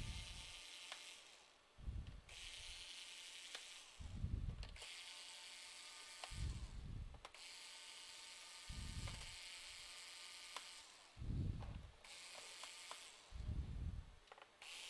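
Screwdriver taking screws out of a laptop's back cover, with small ratchet-like clicks and a dull bump every two seconds or so.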